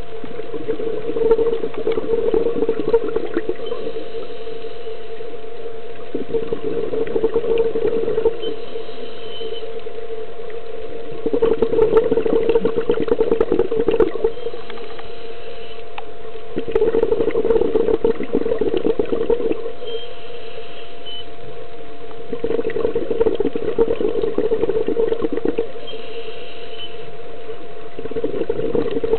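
A scuba diver breathing through a regulator underwater: about five long bubbling exhalations of two to three seconds each, one every five to six seconds, with a faint hiss of inhalation between them, over a steady hum.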